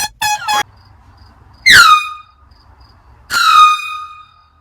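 Air horn blasted twice: a short blast about one and a half seconds in, then a longer one about a second later. Each dips quickly in pitch as it starts, then holds a steady, loud tone.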